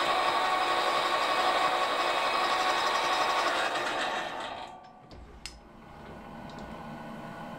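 Metal lathe running steadily, then switched off and spinning down about four and a half seconds in. A sharp click follows about a second later, and a quieter low hum carries on after it.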